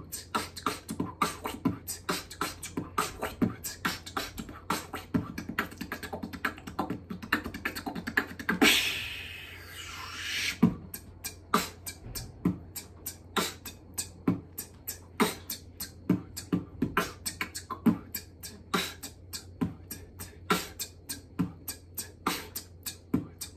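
A person beatboxing: a fast, driving run of mouth-made percussive hits and clicks, broken about eight and a half seconds in by a two-second breathy hiss before the beat picks back up.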